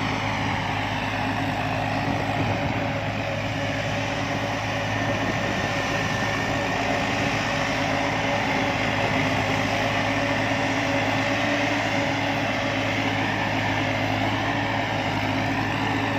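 Combine harvester engine running steadily at a constant speed, with an even, unchanging hum.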